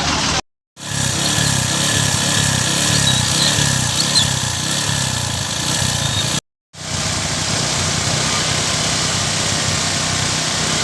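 An engine running over a steady rushing noise, dropping out completely twice for a moment.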